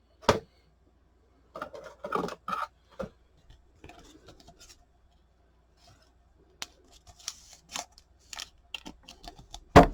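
Trading cards being handled and shuffled from one to the next: irregular rustles and sharp clicks of card stock, with a cluster of rustling early on and another toward the end.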